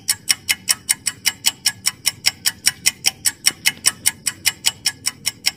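Countdown-timer sound effect: an even, fast clock ticking, about five ticks a second.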